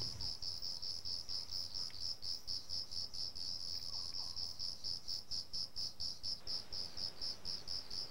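A night insect, cricket-like, chirping steadily and high-pitched at about five even pulses a second.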